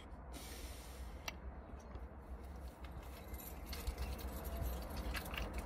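A bunch of keys jingling lightly with a few scattered clinks, more of them in the second half, over a faint low rumble.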